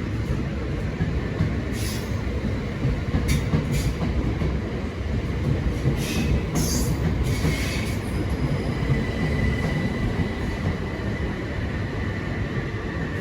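Southern Class 377 Electrostar electric multiple unit running along the platform, its wheels rumbling steadily with a few short sharp squeaks. About eight seconds in, a steady high-pitched wheel squeal sets in and holds.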